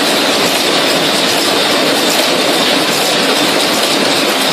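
Automatic through-hole insertion machine running, with a steady mechanical noise and no distinct strokes.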